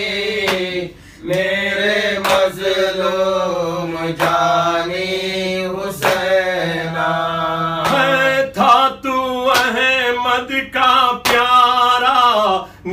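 Male voice singing an Urdu noha, a lament for Imam Hussain, drawing out long wavering held notes between lines. A low steady note is held beneath for the first half.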